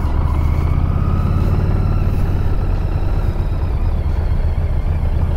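Harley-Davidson V-twin motorcycle engine running steadily at low revs, heard from the rider's seat, with a faint whine that rises a little in pitch about a second in.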